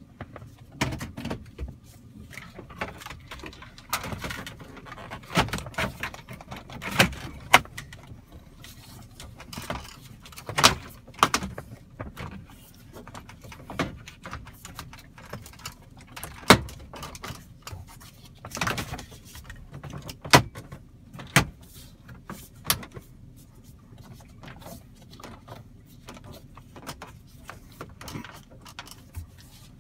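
Plastic dash bezel of a 2007–2013 Chevrolet/GMC truck being pressed into place around the radio: irregular clicks, knocks and rustles of plastic trim, with a few sharp snaps as its clips seat.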